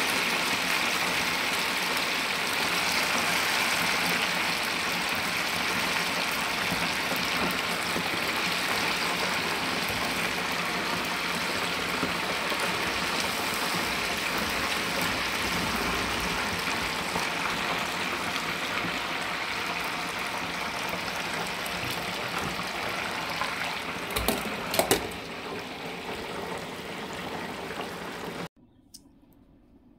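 Chicken pieces sizzling and bubbling in the hot oil of an electric deep fryer, a steady hiss. Near the end a few sharp knocks, then the sound cuts off abruptly.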